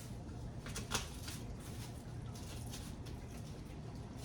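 Faint kitchen handling sounds: a few light clicks and taps over a steady low room hum.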